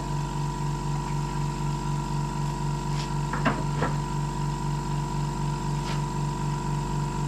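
A steady electric machine hum with a low pulsing, about four beats a second, and a few light clicks about halfway through and once more near the end.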